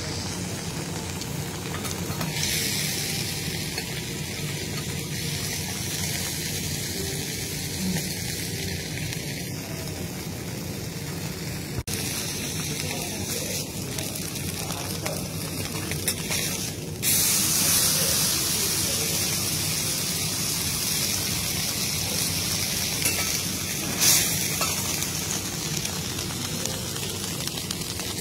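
Marbled beef steaks sizzling on a hot flat steel griddle, a steady frying hiss. It grows louder about two seconds in and again just past halfway, with a brief louder flare about three quarters of the way through.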